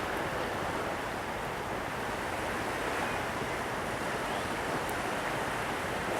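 Steady rushing noise of sea surf, mixed with wind.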